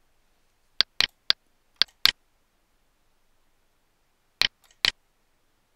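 Computer mouse buttons clicking: a quick run of about six sharp clicks in the first two seconds, then two more about four and a half seconds in.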